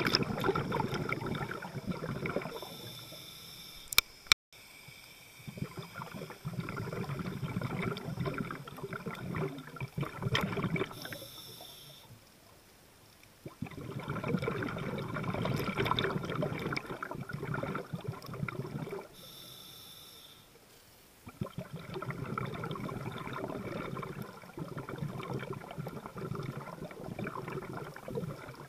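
Scuba diver breathing through a regulator underwater: long gurgling rushes of exhaled bubbles, four in all, each broken by a short inhalation with a thin, high regulator hiss. Two sharp clicks about four seconds in.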